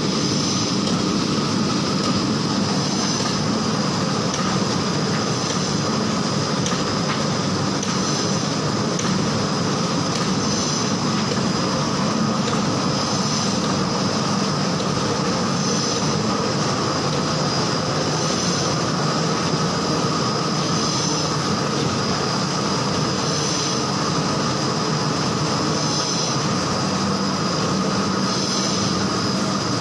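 Paper edge protector (corner board) forming machines running: a steady mechanical hum and whine, with a brief high hiss repeating about every two and a half seconds.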